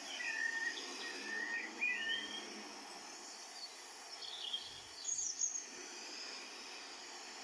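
Birds chirping and whistling over a steady high hiss: short whistled notes in the first couple of seconds, then a quick cluster of higher chirps about five seconds in.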